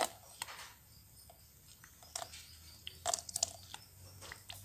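Faint scattered clicks and crinkles from a plastic squeeze bottle being squeezed as water is dribbled into a plastic tub on a digital kitchen scale, with a short cluster of louder clicks about three seconds in.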